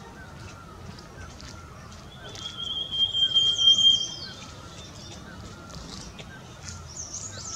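Wild birds calling in forest. Soft short chirps repeat throughout. Around the middle a loud, steady high whistle is held for about two seconds under sweeping high calls, and more sweeping calls come near the end.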